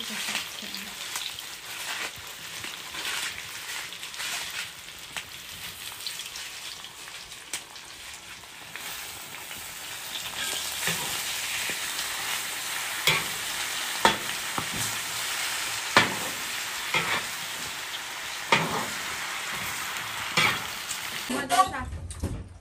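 Napa cabbage and cured pork sizzling in a wok, stirred with a metal spatula that clicks and scrapes against the pan every second or two. The sizzle grows louder about halfway through and cuts off near the end.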